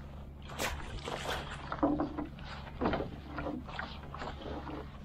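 Fishing net being hauled into a small boat: irregular splashes, drips and knocks of wet net and water against the hull, over a steady low hum.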